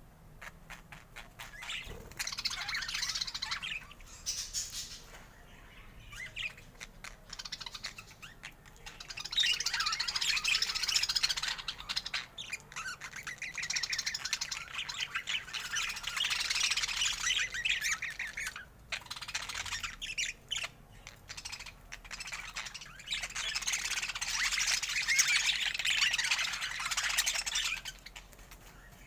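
Budgerigars chattering and warbling in several long runs of rapid chirps and squawks, with short pauses between the runs.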